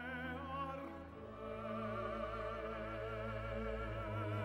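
Classical background music with sustained, wavering (vibrato) melody lines over a low accompaniment.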